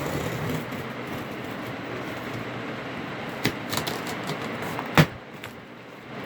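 Shipping box being cut open: a few light clicks, then one sharp snap about five seconds in, over a steady background hiss.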